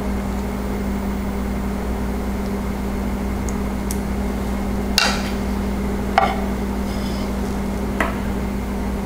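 A plastic serving spoon scraping and tapping on a ceramic plate as chunky salsa is spooned onto a fish fillet, with three sharp clicks in the second half and a few fainter ticks before them. A steady low hum runs underneath throughout.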